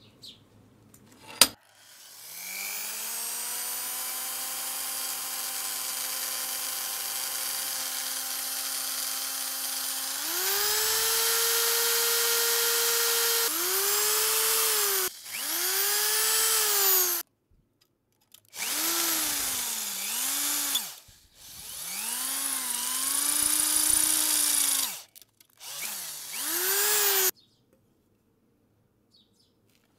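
A single sharp crack about a second and a half in, then an electric power tool's motor spinning up to a steady high whine that steps up in pitch about ten seconds in. After that it runs in several separate short bursts, its pitch sagging under load and recovering each time.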